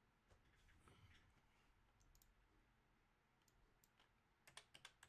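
Near silence with a faint rustle, then, near the end, a quick run of computer keyboard keystrokes clicking several times a second.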